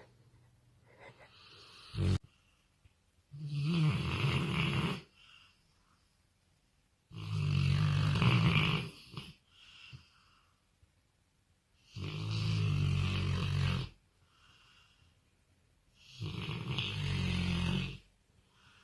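A sleeping pet snoring loudly and deeply, four long snores of about two seconds each, coming every four to five seconds with quiet breaths between. A short sharp click sounds about two seconds in.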